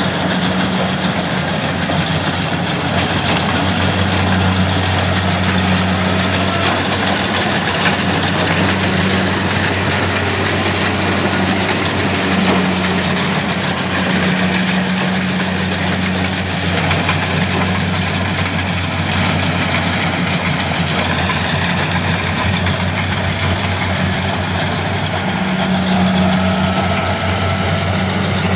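Combine harvester engine running steadily in a rice paddy, a continuous low engine drone with mechanical noise over it.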